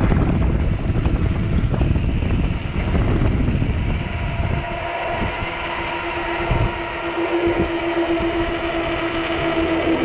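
Wind buffeting the microphone, easing off about halfway through, as a steady whine from an electric bike's motor running on throttle comes through.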